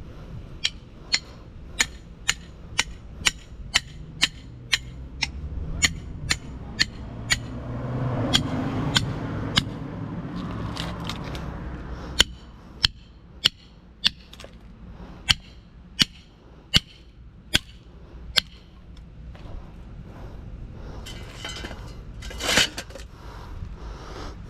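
Hammer blows on an electric motor's stator, about two a second, driving out the copper winding bundle; they stop about three-quarters of the way through. A low rumble swells and fades in the middle.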